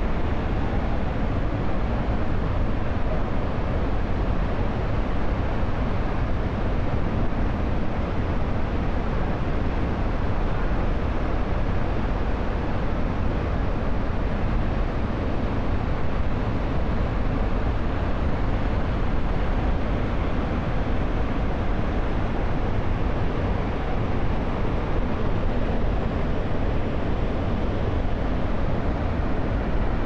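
Waterfall: a steady, unbroken rush of falling water, heaviest in the low end.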